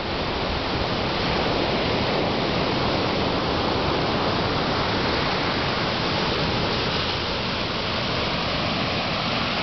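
Ocean surf breaking on rocks and a sandy beach: a steady, even rush of noise with no single wave crash standing out.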